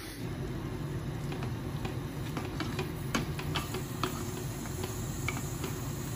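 Tomato masala sputtering and crackling as it fries in a kadai, with irregular sharp pops over a steady low hum.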